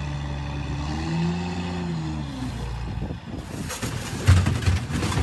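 An engine runs steadily, its pitch rising briefly and settling back. Then at about three seconds the sound changes to noisy clattering, with a loud knock about four seconds in.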